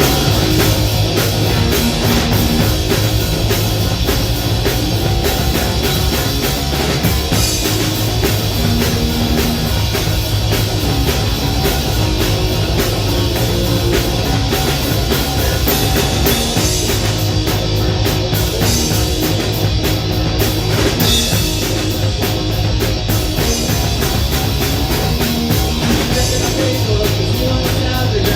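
A live rock band playing a loud, fast song with distorted electric guitar, bass and a pounding drum kit.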